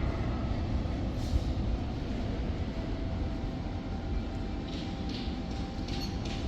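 Strong wind buffeting the microphone: a steady, deep rumble, with a few faint short hisses above it.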